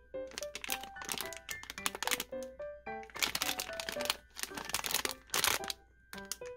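Plastic foil blind-bag wrapper crinkling as it is handled and turned over, in loud repeated rustles from about half a second in until shortly before the end. Light background music with piano-like notes plays underneath.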